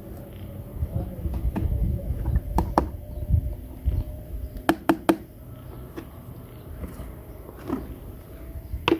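Small plastic toy kitchen pieces clicking and tapping as they are handled, with a low rumble of handling. A few sharp clicks come in quick runs about two and a half seconds and five seconds in.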